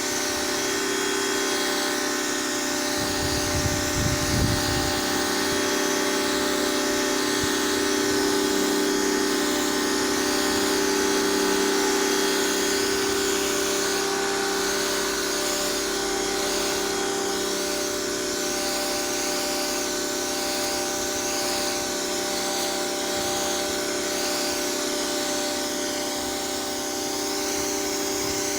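Pressure washer running steadily, its motor and pump humming under the hiss of the water jet spraying the pavement, with a brief low rumble about three seconds in.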